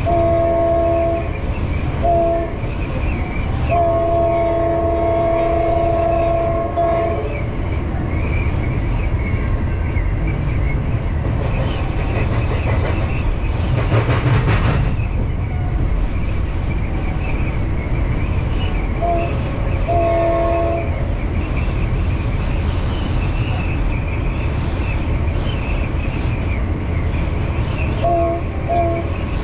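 Diesel passenger train running with a steady low rumble while the multi-note horn of the F59PHI locomotive ahead sounds a series of blasts, heard from two cars back: a long blast, a short one and a longer held one in the first seven seconds, a short and a long blast about two-thirds through, and two quick toots near the end. A brief rush of noise comes about halfway through.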